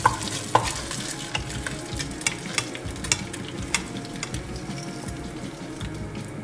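Hot mustard oil sizzling and crackling in a nonstick pot, with a wooden spoon scraping the pot and clicking against a bowl as fried hilsa fish heads are lifted out. The clicks and ticks come many times over the steady frying.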